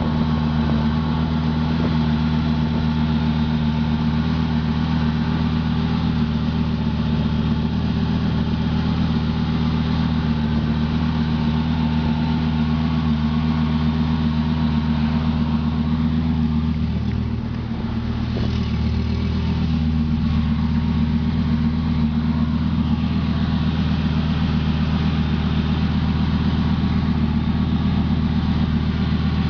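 2004 Lamborghini Gallardo's 5.0-litre V10 idling steadily, with a brief dip in level about two-thirds of the way through.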